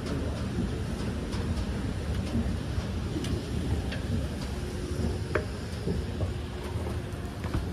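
Schindler escalator running: a steady low rumble from the moving steps and machinery, with scattered light clicks. A faint steady hum joins in over the second half.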